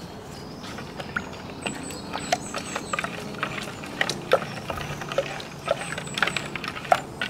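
Wooden spoon stirring a liquid sauce in a clear bowl, with irregular light clicks and scrapes of the spoon against the bowl's sides.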